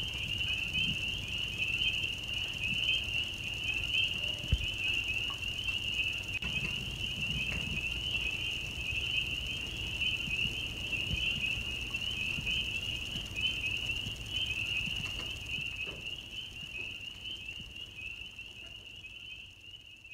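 A dense chorus of spring peepers peeping, a steady high shrill trill, over a low rumble, with a single thump about four and a half seconds in; the chorus fades out near the end.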